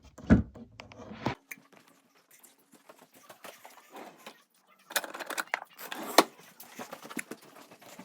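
Indoor handling and movement noise: a heavy thump just after the start, then scattered faint clicks, knocks and rustles, with a cluster of louder sharp clicks about five to six seconds in.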